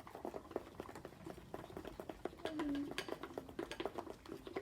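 Runny homemade slime being worked by hand in a bowl: a string of irregular small wet clicks, squelches and clinks against the bowl. The batch is still watery, not setting up.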